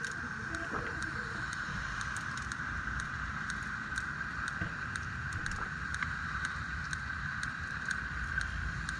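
Steady running noise of a fishing boat's engine, a constant hum over a low rumble, with scattered sharp little clicks.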